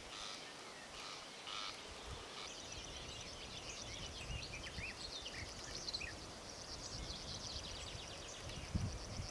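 Outdoor ambience of birds calling, with a high, continuous trill that sets in about two and a half seconds in, over scattered low rumbles.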